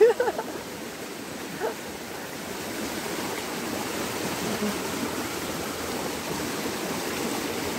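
Small, fast-flowing stream rushing in white water, a steady noise of running water.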